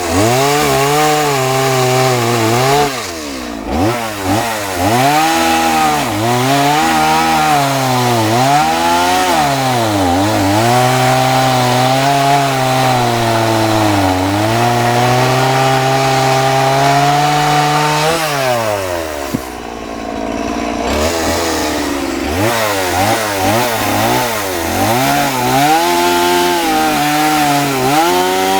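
Two-stroke chainsaw cutting into a wood block, the engine revving up and down again and again with each cut. About two-thirds of the way through it drops to idle for a few seconds, then revs up and cuts again.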